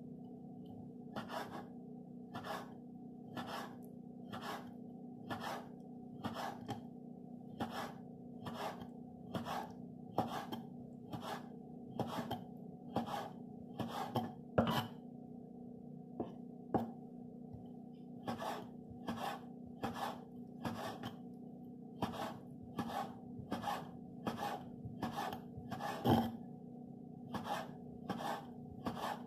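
A kitchen knife slicing through small pieces of food and tapping the wooden cutting board in a steady rhythm, about one and a half cuts a second. A steady low hum runs underneath.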